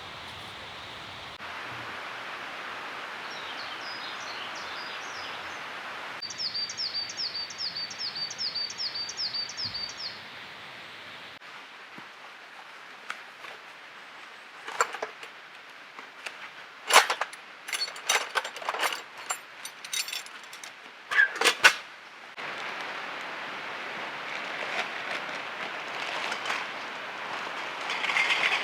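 Forest ambience with a songbird singing a quick series of about a dozen short, repeated high notes. After it comes a run of sharp clicks and knocks, like camping gear being handled.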